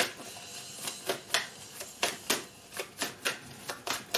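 A deck of divination cards being shuffled by hand: a quick run of short, crisp card slaps, about two to three a second.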